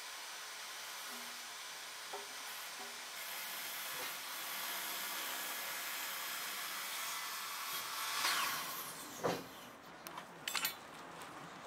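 A steady hiss that fades out about eight or nine seconds in, followed by a few light clicks near the end.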